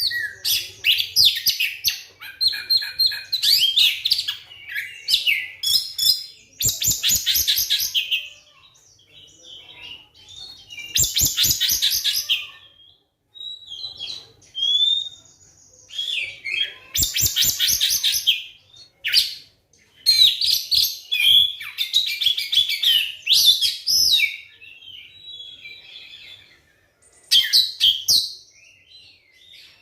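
Oriental magpie-robin (kacer) singing loudly in varied whistled phrases, with several rapid-fire rattling bursts and short pauses between phrases.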